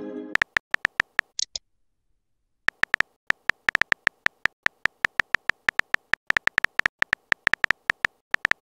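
Simulated phone keyboard typing clicks from a texting-story app: after a pause, a quick, uneven run of sharp taps as a message is typed letter by letter. A chime sound fades out at the very start, and a brief high double beep comes about a second and a half in.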